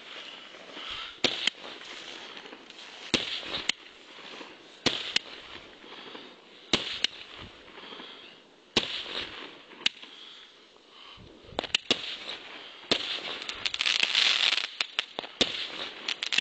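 Fireworks going off: sharp bangs every second or two over a hiss of crackling. About three-quarters of the way through it builds into a dense, louder barrage of crackling and rapid bangs.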